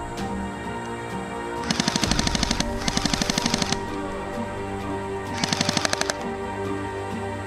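Airsoft guns firing three rapid full-auto bursts of about a dozen shots a second: two back to back about two seconds in, and a shorter third about five and a half seconds in. Background music plays under them.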